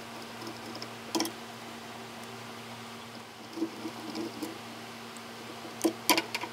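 Small clicks and taps of a screwdriver and metal parts being handled while the Bowden extruder's stepper-motor mounting screws are driven into the 3D printer's frame, over a steady low hum. There is a quick cluster of clicks near the end.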